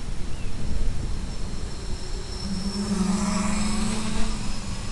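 Steady hiss and rumble, with the electric motor and propeller of an FPV model aircraft coming in about halfway through as a steady-pitched hum for about two seconds before fading.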